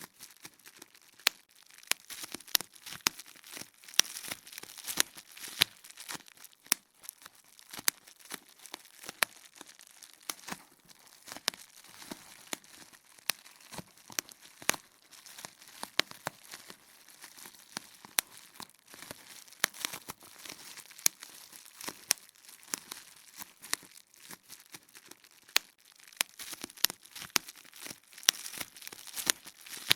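Bubble wrap being popped: irregular sharp pops, a few each second, some much louder than others, with the plastic sheet crinkling between them.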